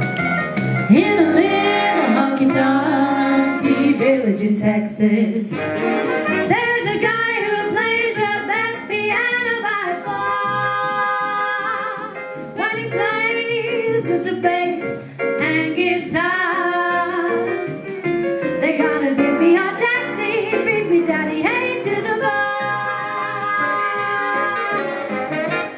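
Two women singing a 1940s-style song together with instrumental accompaniment, amplified through microphones.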